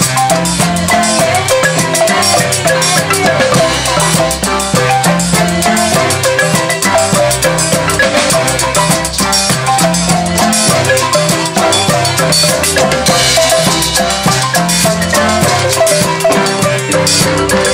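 Zimbabwean-style marimbas played live with mallets by a group of children: fast, interlocking repeated note patterns over a low repeating bass line, with drums.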